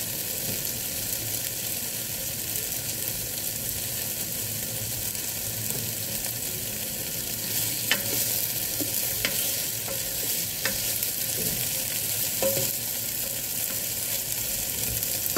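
Tofu cubes frying in hot oil in a nonstick electric multi-cooker pot, a steady sizzle. From about eight seconds in a spatula stirs them, with a few light knocks against the pan.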